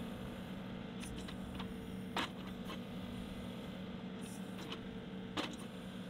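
Faint, steady running of a John Deere 2038R compact tractor's diesel engine while its 270 backhoe pushes off the bucket to walk the tractor forward. A few sharp clanks come through, the clearest about two seconds and five seconds in.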